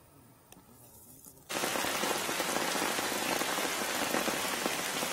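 Heavy rain falling, a loud dense hiss of drops that starts abruptly about a second and a half in.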